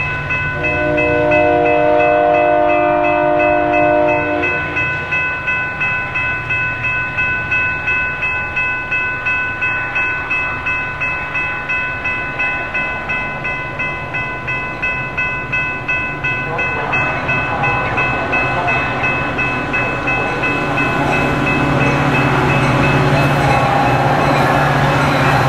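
A Metra F40PH diesel locomotive's horn sounds one long blast in the first few seconds, over grade-crossing bells ringing steadily. The diesel engines hum underneath, and the train noise grows louder from about two-thirds of the way in.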